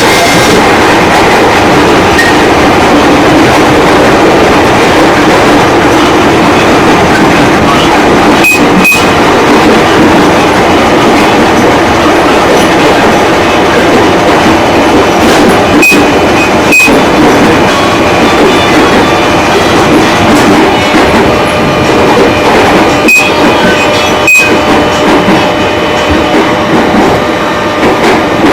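JR 205 series electric commuter train running steadily, its wheels clacking over rail joints in pairs three times.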